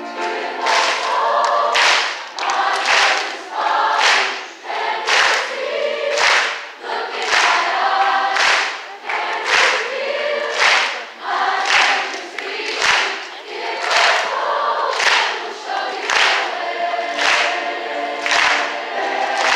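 Large mixed choir singing, with sharp claps or accents on a steady beat about once a second.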